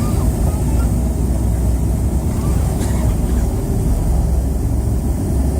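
Steady low rumble of a McDonnell Douglas MD-88 airliner's rear-mounted Pratt & Whitney JT8D turbofans, heard from inside the cabin.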